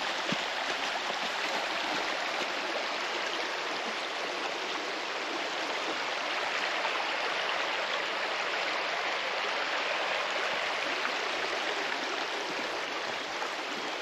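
Whitewater River running over shallow rapids: a steady, even rush of flowing water.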